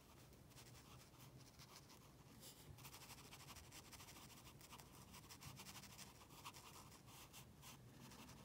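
Faint, soft scratching of a round watercolour brush stroking and dabbing a wet wash onto textured Moleskine watercolour paper, in many short strokes, over a low steady hum.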